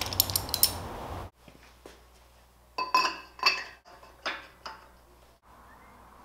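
Clicks and a brief hiss as an air hose quick-connect coupler is pushed onto an air/hydraulic jack's inlet, then sharp metallic clinks as a steel tube is knocked into a tube bender's die and frame: a cluster of clinks about three seconds in and a few more about a second later.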